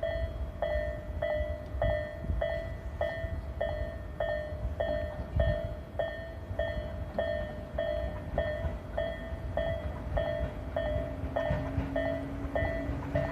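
Japanese level-crossing warning bell ringing its electronic ding, evenly repeated a little under twice a second, warning that a train is coming. A low rumble runs underneath, and in the last few seconds a low hum from the approaching Tobu 8000-series train comes in and grows.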